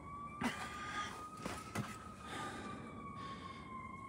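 Distant emergency-vehicle siren, one slow wail whose pitch sinks and rises gently. A few light knocks come through it, the loudest about half a second in and others around a second and a half in.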